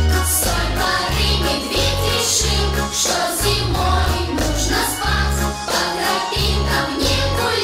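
Upbeat children's song on the show's sound system: a backing track with a steady thumping bass beat and bright jingling percussion.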